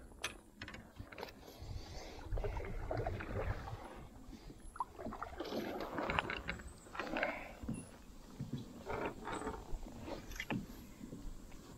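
Irregular light knocks, clicks and rustling of gear being handled aboard a plastic sit-on-top fishing kayak.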